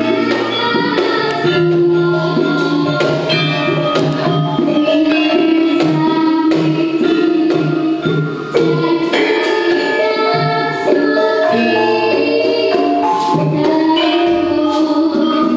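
Javanese gamelan ensemble playing a gending: bronze metallophones and gongs ringing in interlocking patterns over a kendang drum, with young voices singing along.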